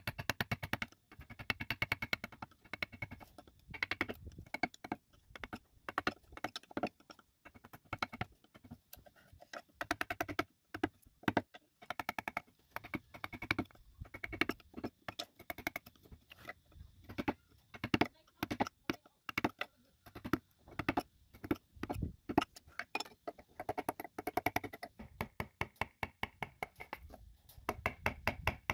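Hand-pushed carving gouge cutting into wood: a fast, irregular run of sharp clicks and small cracks as the blade slices through the grain and chips break away.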